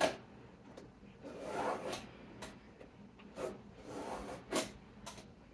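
Knife scoring a Palisade waterproof wall plank along a speed square: several separate scraping strokes, after a short knock right at the start.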